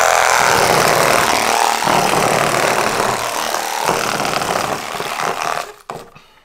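Small DC motor spinning an oversized eccentric weight, shaking a 3D-printed scribble-bot platform so its felt-tip pen legs rattle against the paper: a loud, steady buzzing rattle that dies away near the end. The eccentric is too big, so the bot vibrates violently.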